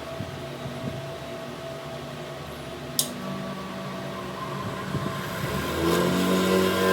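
Workshop machine motor running with a steady hum, a single sharp metallic click about three seconds in, then another motor spinning up and getting louder near the end.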